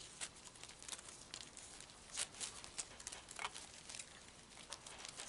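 Faint, scattered rustling and crinkling with small clicks as gloved hands wrap electrical tape around igniter wires over a plastic sheet.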